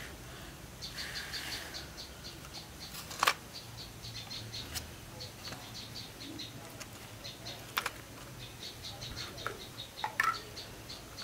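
A small bird chirping, short high-pitched chirps repeated several times a second, with a few sharp clicks or knocks, the loudest about three seconds in and others near five, eight and ten seconds.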